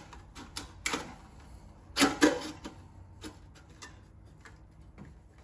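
Scattered light clicks and knocks of exhaust tips and their clamps being handled and fitted, with two sharper knocks about two seconds in.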